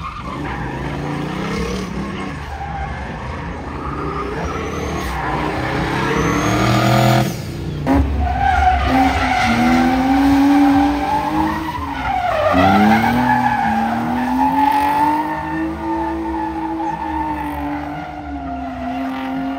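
Drift car's engine held at high revs as the car slides, with tyre noise underneath. The engine pitch dips sharply about two-thirds of the way through and climbs back up.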